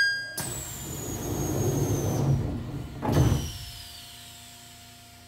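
EV-E301 train's sliding passenger doors closing: a rush of sliding noise with a high whine falling in pitch, then a thump as the doors shut about three seconds in. A quieter steady hum follows.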